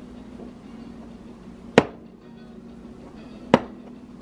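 A raw egg knocked against a stovetop by a small child's hand: two sharp taps about two seconds apart, which leave the shell uncracked.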